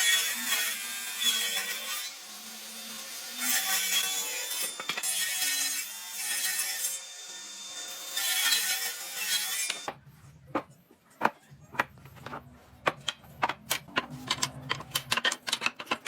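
Long rasping strokes of a woodworking hand tool on timber, about one every two seconds. About ten seconds in, they give way to a quick, irregular run of sharp taps and clicks.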